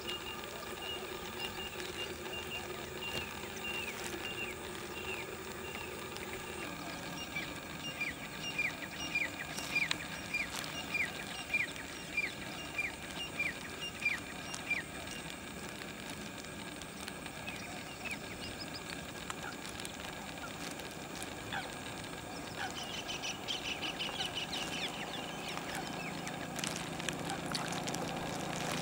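Lesser whistling duck ducklings peeping: a steady series of short falling peeps, about two a second, for the first half, then a quicker, busier run of higher peeps about three-quarters of the way through.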